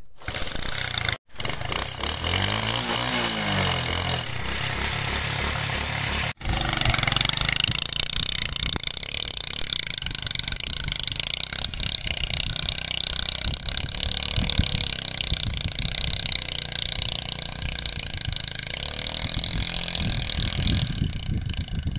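Small motorcycle engine running hard and revving under load as the bike is ridden up a steep rocky slope. The sound drops out briefly twice in the first seven seconds.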